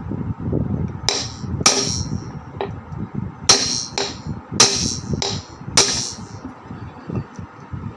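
Sharp metallic clangs as a ceiling fan's metal cover is knocked into place on the motor during a bearing replacement: about eight ringing knocks between about one and six seconds in, some harder than others.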